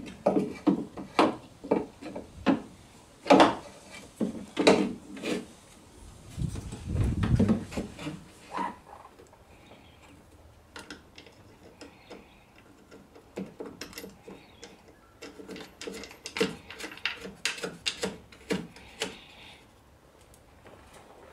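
Hand work on the lock parts inside a car door: a run of sharp knocks and clicks of plastic and metal pieces, a rubbing scrape about seven seconds in, then sparser, lighter clicks and rattles.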